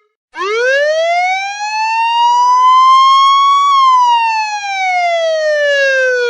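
Police siren sounding one slow wail cycle: a pitched tone that starts just after a short silence, rises for about three seconds, then falls steadily back down.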